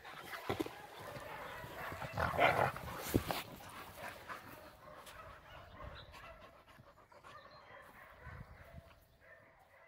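Two black Heideterrier hunting terriers at play, the dogs' breathing and play noises loudest about two to three seconds in, then fading.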